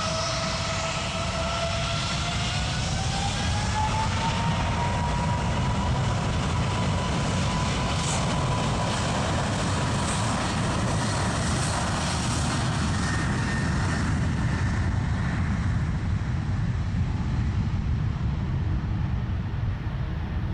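Boeing 777's twin turbofan engines at takeoff power: a whine rising in pitch over the first few seconds and levelling off over a steady roar, with the higher sounds fading near the end as the jet pulls away.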